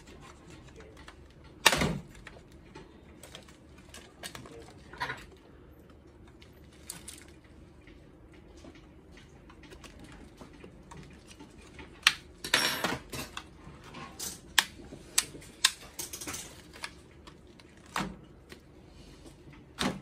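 Clicks and knocks of hands handling a plastic card-printer housing and a part in a plastic bag, with crinkling of the bag. A loud knock comes about two seconds in; sharp clicks and rustling cluster in the second half.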